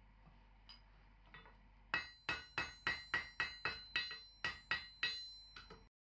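Hand hammer striking a red-hot steel router plane blade on an anvil: a few faint clinks, then about a dozen ringing blows at three to four a second, ending in two lighter taps before the sound cuts off suddenly.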